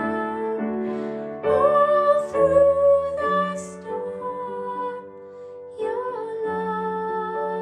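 A slow, gentle song: a sung voice holding long notes over soft accompaniment.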